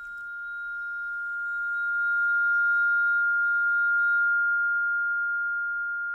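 A single steady, high-pitched electronic sine tone that swells up over the first few seconds and then slowly fades, with faint higher tones above it that stop about two-thirds of the way through.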